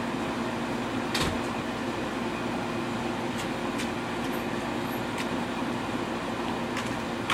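A steady mechanical hum over a hiss, with a few faint clicks; the clearest click comes about a second in.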